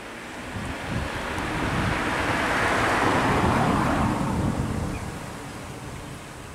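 A vehicle driving past on the road, its noise swelling to a peak about three seconds in and then fading, over a low engine rumble.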